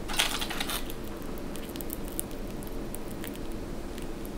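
Crisp crackling of a freshly fried egg roll being handled: a dense burst of crackles at the start, then scattered small crackles and clicks over a steady low hum.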